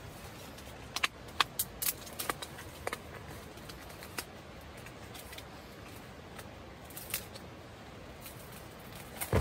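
Aluminium foil tray heating on a gas camp stove, giving irregular sharp ticks and crackles as its contents start to smoke and glow, over a steady low hiss.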